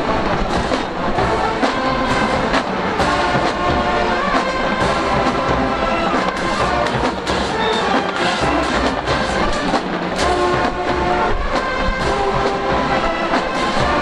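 Marching band playing loudly: massed trumpets and trombones over a steady drum beat.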